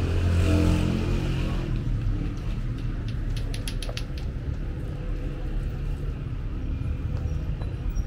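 Street traffic rumbling, with a vehicle engine passing close by in the first second or so. A quick run of light clicks follows around the middle.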